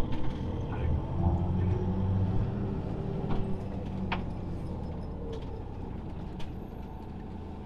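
Motorhome driving slowly, its engine and road noise heard from inside the cab. The rumble is a little stronger in the first couple of seconds, then settles to a steady level, with a few light clicks and rattles.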